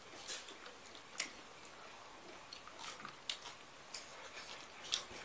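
Faint mukbang eating sounds: mouths chewing singju cabbage salad, with scattered short wet smacks and crisp clicks a few times a second apart.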